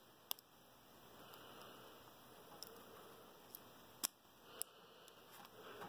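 Small sharp clicks of metal padlock parts being handled while the ABUS 83/45 padlock is taken apart and its core is worked out, one near the start and two close together about four seconds in, over faint room hiss.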